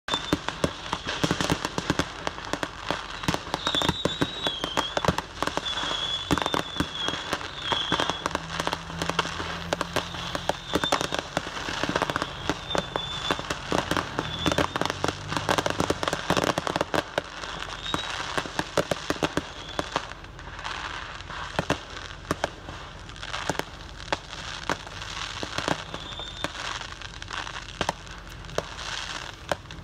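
Stored consumer fireworks exploding in a burning fireworks store: a continuous barrage of bangs and crackling. A wavering high whistle comes and goes in the first half.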